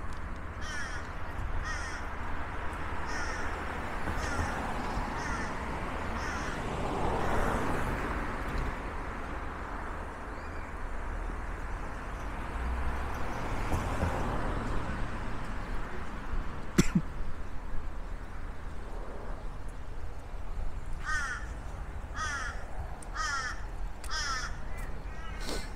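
A bird giving short calls about once a second, a run near the start and another near the end, over a steady low rumble. There is one sharp knock about two-thirds of the way through.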